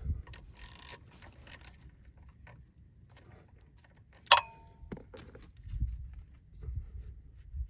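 Small metal parts and hand tools clinking and rattling as a cover plate is taken off a skid steer's track tensioner, with one sharp, ringing metal clink about four seconds in and a few dull low thumps near the end.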